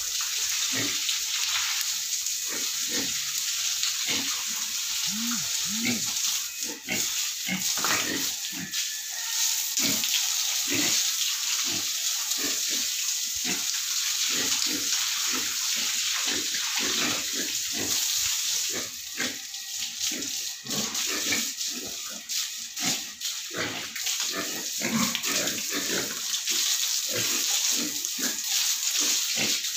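Water from a garden hose spraying and splashing onto a wet concrete pig-pen floor, a steady hiss, with pigs making frequent short grunts.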